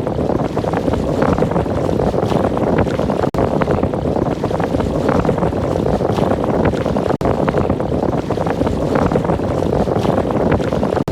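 Loud, steady rushing noise like wind buffeting the microphone, broken by brief dropouts every few seconds.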